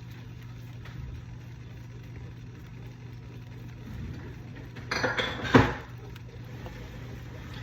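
A utensil clinks and scrapes against a pot in a short loud clatter about five seconds in, over a steady low kitchen hum.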